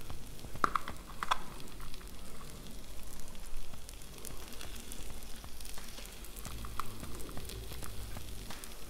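Smashed potatoes sizzling on the hot steel flat-top of a Blackstone griddle, with many small crackles and pops as shredded cheddar is sprinkled over them. A couple of sharper ticks stand out about a second in.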